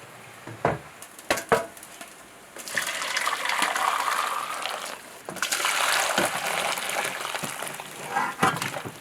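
A few sharp knocks, then water running in two stretches of about three seconds each with a short break between, such as water running into a basin or pot while cooking; more light knocks near the end.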